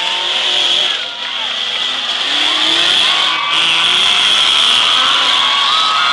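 Off-road vehicle engine revving hard through a mud pit, its pitch rising and falling, with spectators' voices over it.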